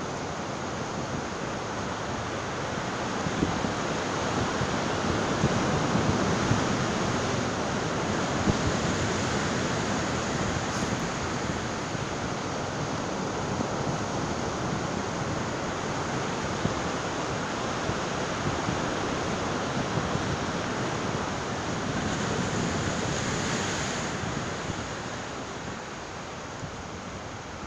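Sea surf breaking and washing over rocks, with wind rushing across the microphone. The surf swells louder a few seconds in and eases off near the end.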